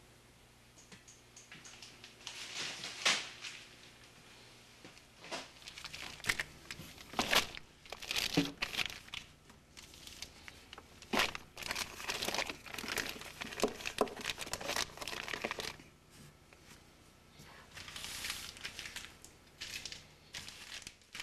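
Plastic freezer bags crinkling and rustling in irregular bursts as they are handled, with a short lull about three quarters of the way through.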